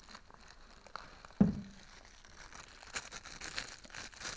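A single dull thump about a second and a half in, then crinkling, rustling handling noise with small clicks.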